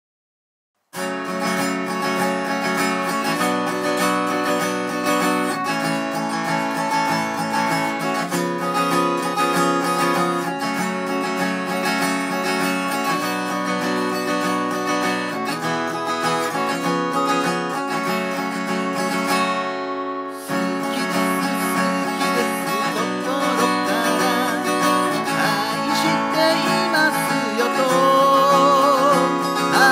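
Gibson J-45 steel-string acoustic guitar with a capo, strummed with a pick through a minor-key chord progression (Em, Am, G, B7). It starts about a second in, with a brief break about two-thirds of the way through.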